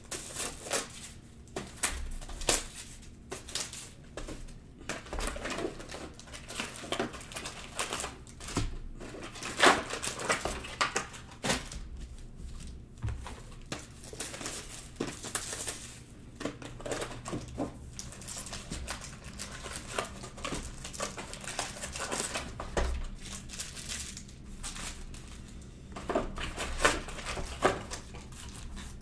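Clear plastic wrap and foil trading-card packs crinkling and tearing as they are unwrapped and handled, in irregular crackles of varying loudness.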